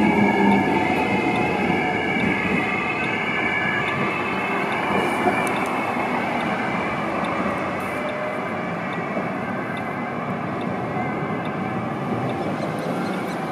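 A tram passes close, its rumble and high steady squeal fading over the first few seconds. Street traffic follows, with the siren of a German police car.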